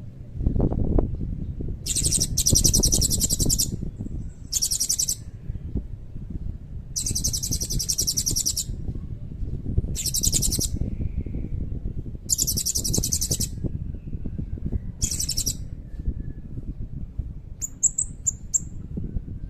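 Blue-crowned hanging parrot (serindit) singing: six very high-pitched, rapid trills of one to two seconds each, separated by short pauses, then a few short chirps near the end. A steady low rumble runs underneath.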